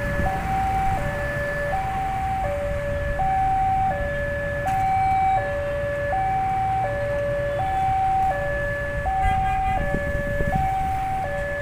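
Railway level-crossing warning alarm sounding: an electronic two-tone signal alternating steadily between a higher and a lower pitch, each held about three-quarters of a second. It marks the crossing closed for an approaching train.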